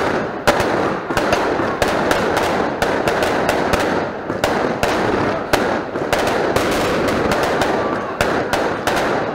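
Firecrackers going off in a long, rapid run: many irregular sharp cracks over a continuous crackle, with no break.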